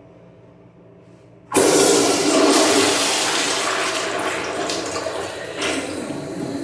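American Standard Cadet pressure-assist toilet flushing: a sudden loud rush of water about a second and a half in, as the pressure tank forces the water through the bowl, slowly fading over the next few seconds.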